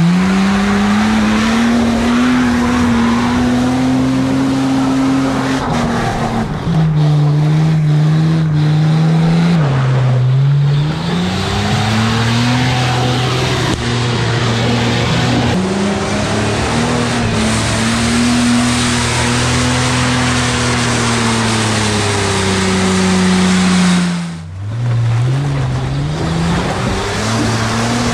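Toyota Land Cruiser pickup's 4.5-litre engine revving hard under load as the truck labours through deep mud, the pitch climbing, holding high and falling back several times as the driver works the throttle. Near the end it briefly eases off, then revs up again.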